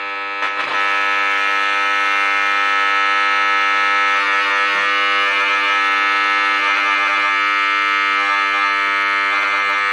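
A 1950s HMV valve radio's loudspeaker giving out a steady, loud buzzing hum, coming up after a couple of clicks about half a second in as the aerial wire is handled.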